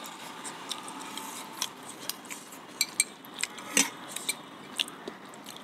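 Metal forks clinking and scraping against a pan and a glass bowl during eating, a scatter of short, light clicks at irregular intervals.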